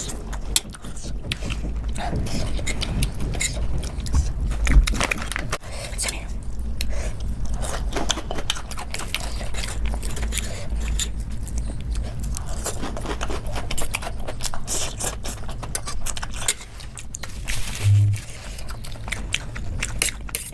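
Close-up eating sounds: a person biting and chewing food, with many wet clicks and crackles and some scraping.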